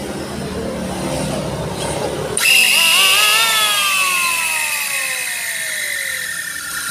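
Small electric hand planer switched on about two and a half seconds in, its motor and cutter drum whining up to speed, then winding down with a steadily falling pitch as it coasts, spinning free with no wood under it.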